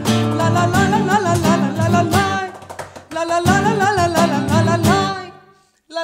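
A woman singing a Cypriot folk melody with wavering, ornamented notes over a strummed Guild acoustic guitar and cajon. The music dips briefly about halfway through and cuts off into a short silent break near the end.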